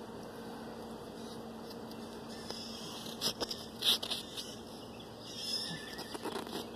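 A steady low hum with a few short scratchy rustles and taps, clustered about three to four seconds in and again near the end.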